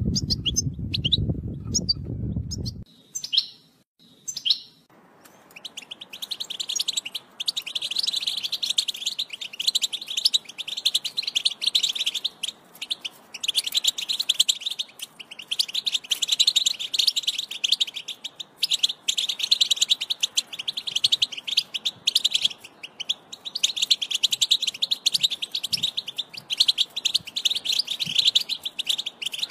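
European goldfinch singing: a long, rapid twittering song with brief pauses. For the first few seconds only scattered chirps are heard over a low rumble, which cuts off suddenly; then, after a short lull, the full song starts.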